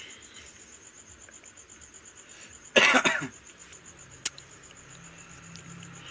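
A man's single short cough about halfway through, loud and lasting about half a second, over a faint, steady, high pulsing chirp; a sharp click follows about a second later.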